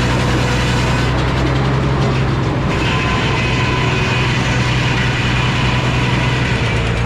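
A heavy engine running steadily with a deep, even hum; a little under three seconds in, the sound turns brighter and harsher.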